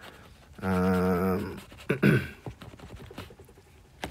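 A man's voice humming a drawn-out, steady 'mmm' for about a second while thinking, then a short falling vocal sound. A faint tap, likely a stylus on the tablet screen, comes near the end.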